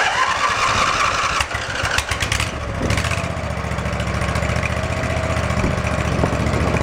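Zero-turn mower engine turned over by its electric starter on the key, catching after about two and a half seconds and settling into a steady run. The key now cranks the engine with a new starter solenoid fitted in place of a corroded one.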